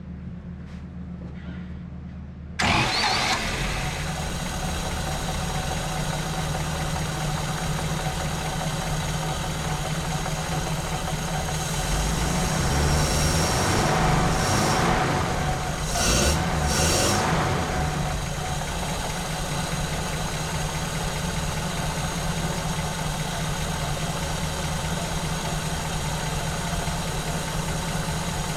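1950 Pontiac Silver Streak's engine running on its freshly rebuilt carburetor, coming in abruptly about two and a half seconds in. It settles into a steady idle, and is briefly revved up louder from about twelve to eighteen seconds in.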